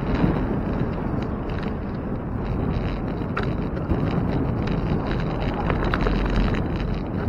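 Wind rushing over a bicycle-mounted camera's microphone while riding, with scattered faint ticks and a thin steady high tone.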